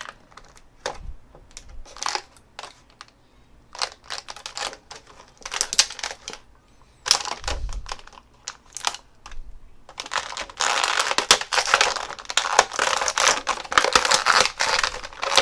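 Stiff plastic clamshell packaging crinkling and clicking as it is handled and the action figure is taken out, in scattered bursts at first and a dense run of crackling over the last five seconds.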